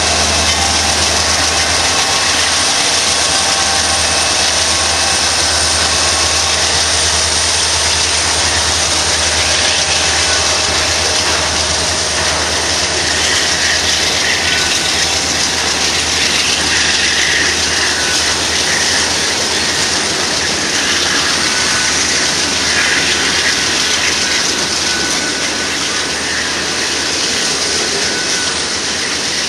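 Union Pacific manifest freight train rolling past close by: a steady, loud rush of steel wheels on rail as the last locomotive gives way to covered hopper cars and then tank cars. The sound eases slightly toward the end.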